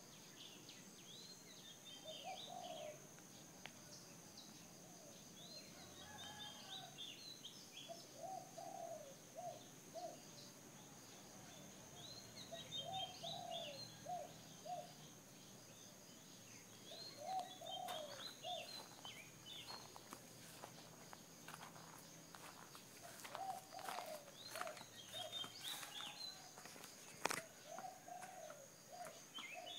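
Birds calling: a dove cooing in short repeated phrases every few seconds, with higher chirping from another bird between them. A faint steady high-pitched whine runs underneath, and a few sharp clicks come in the second half.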